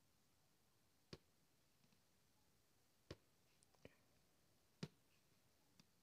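Five faint, sharp clicks at irregular intervals: an embroidery needle punching through fabric stretched taut on an aari frame and being drawn back out.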